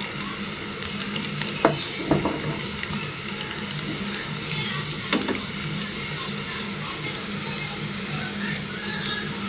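Onion pakoras (gram-flour batter fritters) frying in hot oil: a steady sizzle, with a few short knocks around two and five seconds in.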